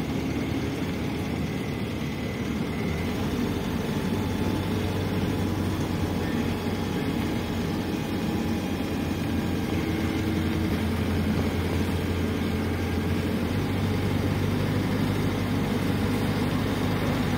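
PAZ 320414-05 bus's diesel engine running steadily while the bus drives along, heard inside the passenger cabin as a low drone with road noise. The drone shifts in pitch about three and a half seconds in and again about thirteen seconds in.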